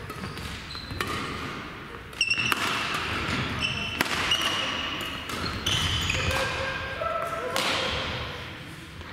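Badminton rally in an echoing sports hall: sharp racket-on-shuttlecock hits a few seconds apart, with shoes squeaking on the court floor between them.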